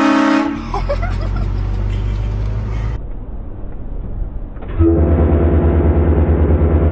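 Vehicle horn blasting as a prank: a short blast at the start, then a longer blast of about two seconds near the end, with the low rumble of the vehicle's engine between them.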